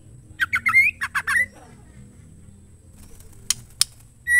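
Female white-rumped shama calling: a quick run of short, bending chirps about half a second in, then two sharp clicks, and a clear whistled note starting near the end.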